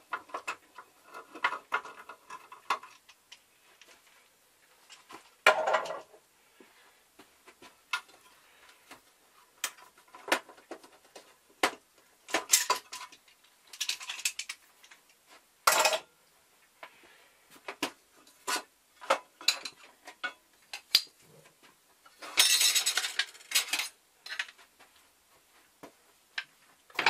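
Bar clamps being loosened and lifted off a steel table saw fence and handled: scattered metallic clicks and clanks, with a louder clatter about five seconds in, another near sixteen seconds, and a longer rattle a little past twenty-two seconds.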